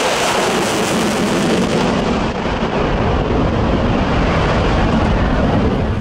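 F-35C Lightning II's single F135 afterburning turbofan at high power as the jet banks overhead: a loud, steady rushing rumble of jet noise with a deep low end and hiss on top.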